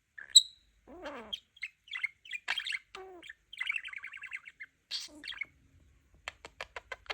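Pet budgerigar (budgie) chattering and warbling: a run of varied chirps, squawks and falling whistled glides, with a fast series of clicks near the end.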